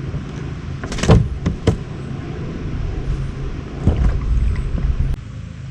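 A few sharp knocks and handling clatter on a plastic fishing kayak, the loudest about a second in, over a steady low rumble that drops off near the end.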